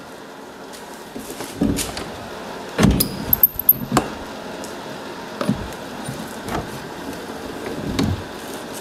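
Antique camelback steamer trunk's domed lid being shut and opened again: a series of knocks and clicks, loudest about three seconds in, with the metal latch and hasp hardware clinking and rattling.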